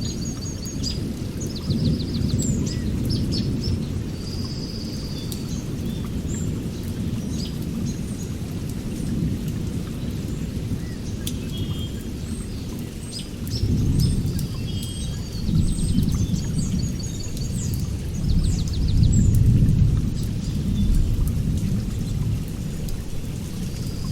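Birds chirping and trilling over a deep, low rumble that swells and fades in slow waves.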